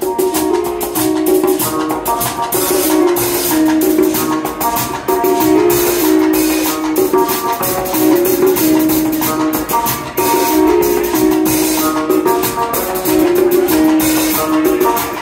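Live band playing an instrumental groove on keyboard, electric bass, drum kit and congas, with a short riff repeating about every two seconds over busy shaker-like percussion.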